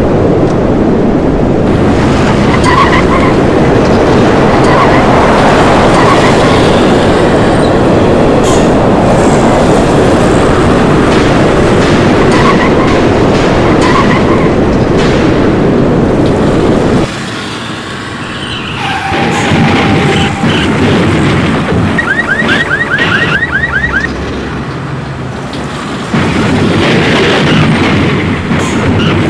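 Sound effects of a tornado: a dense, steady wind roar that cuts off suddenly about seventeen seconds in, followed by lighter noise and a car alarm chirping rapidly near the end.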